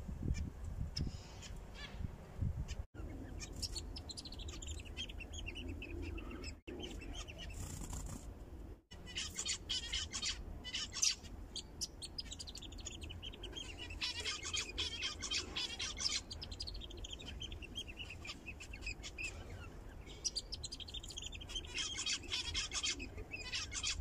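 A group of caged zebra finches calling: strings of short, rapid chirps that come in clusters, busiest around the middle and near the end, over a steady low rumble.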